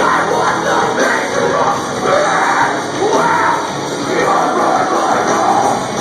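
Metalcore band playing live: loud distorted guitars and drums with yelled vocals over them.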